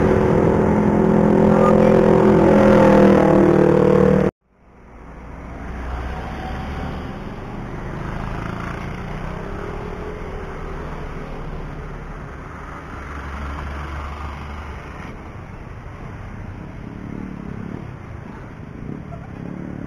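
A motor vehicle's engine running close by, cut off abruptly about four seconds in. Then a steady outdoor noise of wind and distant traffic, with a low rumble that swells twice.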